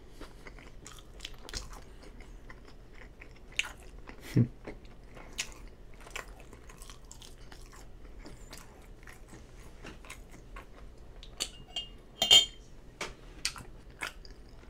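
A person chewing crinkle-cut French fries close to the microphone: soft, wet mouth clicks and smacks, with a few louder ones about four seconds in and again near the end.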